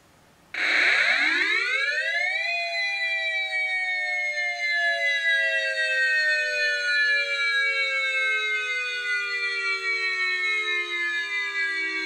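Outdoor civil-defense warning siren sounding for a severe thunderstorm. It starts suddenly about half a second in, winds up quickly in pitch over about two seconds, then holds a loud two-note chord that slowly sinks in pitch.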